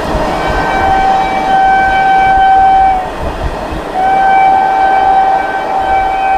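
Indian Railways WAG-9HC electric locomotive's horn sounding two long, shrill blasts about a second apart, over the rumble of the moving train.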